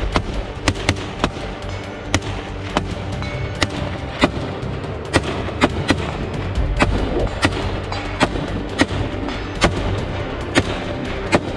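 AK-style rifle fired in rapid single shots, about two a second, sharp cracks over background music.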